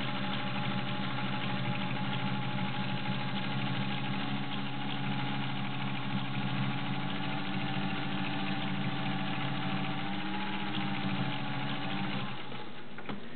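Singer 201-2 sewing machine running steadily on its potted direct-drive motor, stitching through five layers of denim with a size 16 needle. The motor hum and needle action stop about twelve seconds in.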